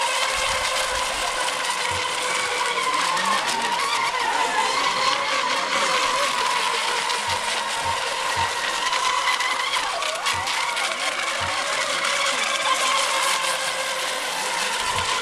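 Several electric-powered RC racing boats running at speed together: a steady high whine from their motors and propellers, several pitches at once, over a hiss. One pitch dips briefly as a boat turns about two-thirds of the way through.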